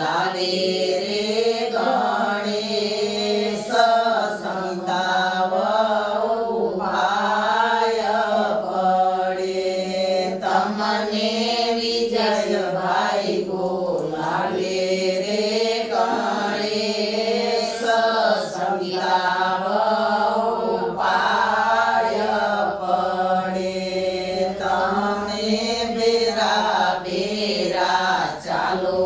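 A group of women singing a Gujarati folk wedding song together in unison: a traditional Sorathiya-Ahir lagnageet sung for the groom's wedding procession (jaan). The melody runs on in long, rising and falling phrases.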